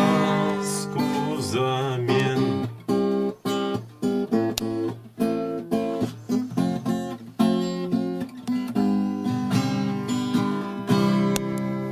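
Acoustic guitar playing the closing chords of a song, picked and strummed, with a last chord left ringing near the end.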